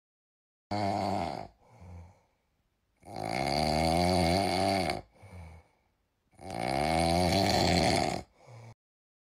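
Loud snoring sound effect: three snores with silence between them. The first is short and the next two each last about two seconds, with a pitch that bends. A short, quieter puff follows each snore.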